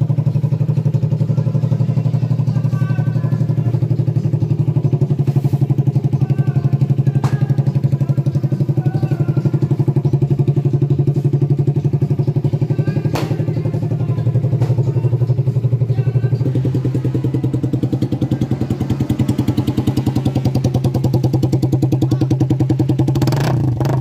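Suzuki Raider 150 carburettor model's single-cylinder four-stroke engine idling steadily with a loud, even exhaust note, settling slightly lower about two-thirds of the way through. A brief burst of noise near the end.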